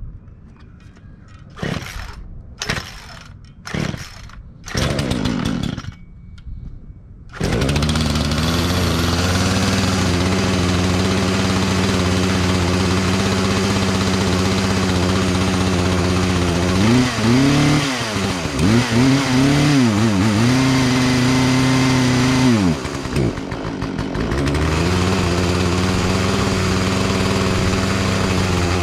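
Two-stroke Poulan Predator chainsaw: a few short bursts, then it starts about seven seconds in and runs loud and steady at high speed. Past the middle its pitch dips and wavers for several seconds before it runs steady again, and it cuts off at the end.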